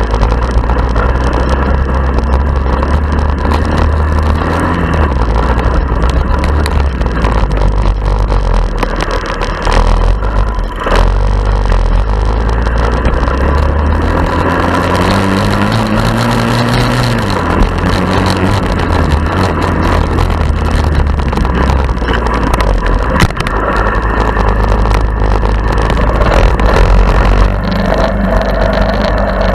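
Honda ATC70 three-wheeler's small single-cylinder four-stroke engine running during an off-road ride, its pitch rising and falling with the throttle, most clearly about halfway through. A few sharp knocks sound over it, around a third of the way in and again past the three-quarter mark.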